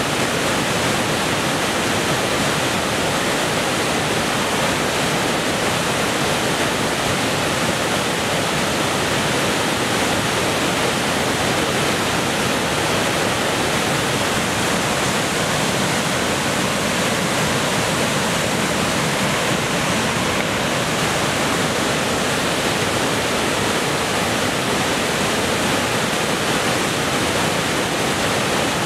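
Steady, unbroken rush of fast white water pouring through rapids.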